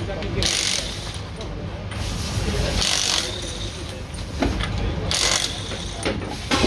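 Ratchet wrench working on bolts under a Ford Fiesta Rally2 car during a gearbox change. It runs in short bursts about every two and a half seconds, with a few knocks of metal between them.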